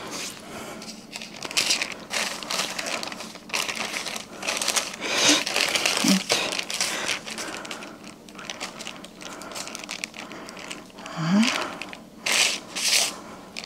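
Baking paper rustling and crinkling in irregular bursts as it is lifted and peeled away while soft dough is rolled up on it; the dough is sticking to the unoiled paper.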